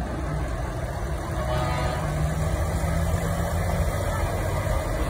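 Heavy diesel engine of a Volvo FH tractor unit driving slowly past, a steady low rumble that grows a little louder as the truck comes close.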